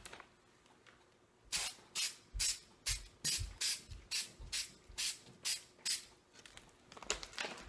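An aerosol can of spray adhesive shaken hard, about thirteen sharp strokes at close to three a second, the mixing ball rattling inside to mix the glue before use.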